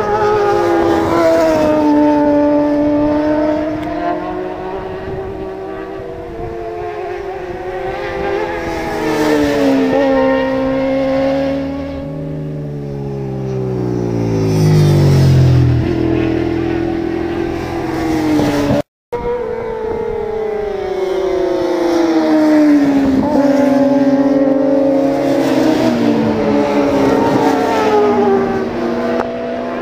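Supersport and superbike racing motorcycle engines at high revs working through a corner, their pitch climbing and dropping as the bikes accelerate, shift and pass, with a long falling sweep in pitch about halfway through. The sound cuts out for a moment about two-thirds of the way through.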